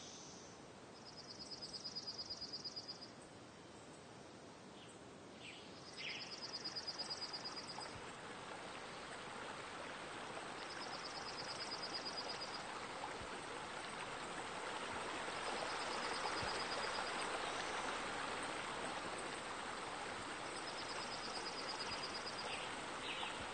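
Night-time ambience: a high, pulsing insect trill about two seconds long, repeating every four to five seconds, over a steady rush of running water that grows louder from about six seconds in.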